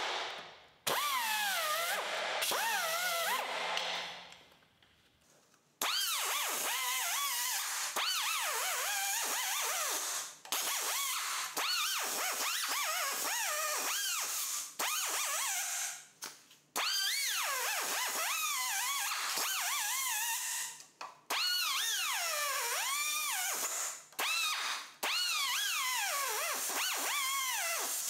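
Die grinder with a small cutoff wheel cutting through the rusty steel of a 1959 VW Beetle floor pan along the chassis tunnel. Its high whine keeps sliding down and back up in pitch as the wheel bites into the metal and frees. It stops for about two seconds around four seconds in and cuts out briefly several more times.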